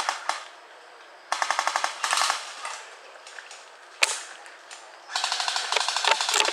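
Airsoft guns firing on full auto: rapid strings of clicks at about seventeen a second, two short bursts, then a longer unbroken burst near the end. A single sharp crack comes in between, about four seconds in.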